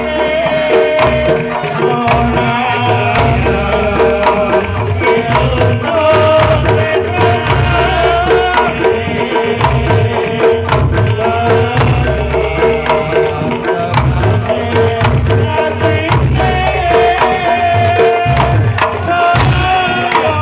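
Reog Ponorogo gamelan music led by a hand-played kendang drum, with quick sharp drum strokes over a rhythm of deep drum beats. A sustained, wavering melody line runs above the percussion.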